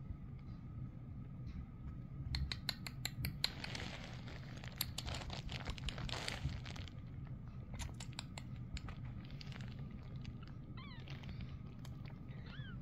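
Rustling and clicking as very young Himalayan kittens shuffle about on a towel, then two tiny high-pitched mews near the end.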